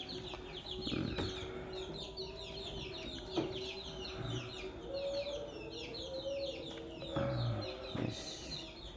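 Chickens in a coop: soft low clucking and calls under a dense, continuous chatter of quick, high, falling chirps.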